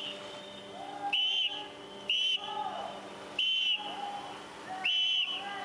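Hand whistle blown in four short, shrill blasts, about a second to a second and a half apart, over a steady low hum.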